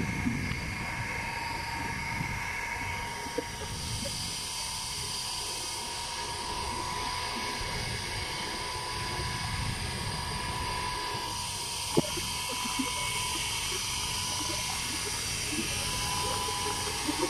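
Fountain pump running: a steady high mechanical whine with several tones, over a low uneven rumble of the water jet and wind on the microphone, with one sharp click about twelve seconds in.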